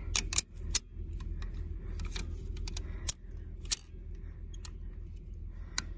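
Steel ratchet strap buckle clicking and clacking as its handle is worked back and forth to release a tightened strap: a handful of sharp metal clicks at irregular intervals, over a steady low rumble.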